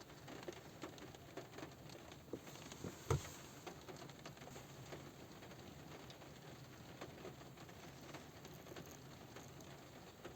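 Light rain pattering on a car roof, heard from inside the car: a faint steady patter of scattered drops, with one louder tap about three seconds in.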